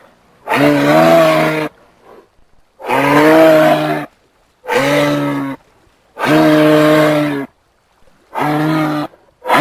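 Giraffe calling over and over in low, drawn-out moo-like calls. Each call lasts about a second, holds a steady pitch, and comes after a short pause, about six calls in all.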